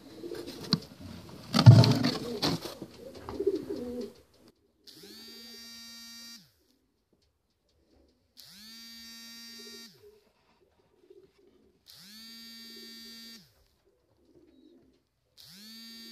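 Pigeons cooing amid handling and rustling noise for the first few seconds. After that, an even buzz starts and stops four times, each about a second and a half long and about three and a half seconds apart, gliding up as it starts and down as it stops.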